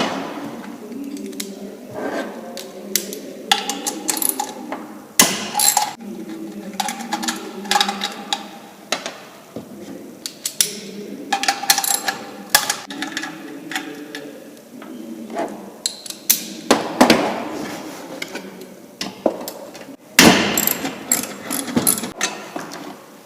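Socket ratchet with a 10mm socket loosening the bolts that hold the shroud on a small engine: runs of ratchet clicks with clinks and knocks of metal tools and parts, busiest about a third of the way in and again near the end.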